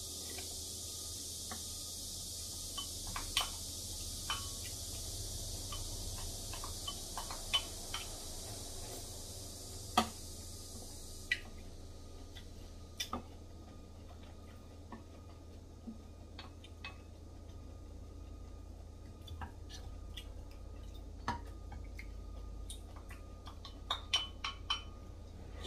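Eating sounds: light clicks and clinks of wooden chopsticks against a porcelain rice bowl, scattered irregularly, with a few sharper clicks about ten seconds in and a cluster near the end. A steady hiss underneath stops about eleven seconds in.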